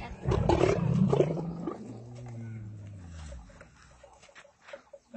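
Dromedary bull camel in rut calling: a loud, rough call for about a second and a half, then a lower drawn-out note that falls in pitch and dies away.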